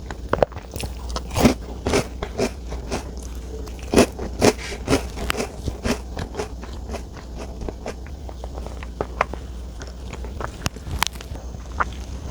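Close-miked eating sounds: a person biting and chewing a chocolate dessert, with many sharp crackling, crunching clicks that are busiest in the first half.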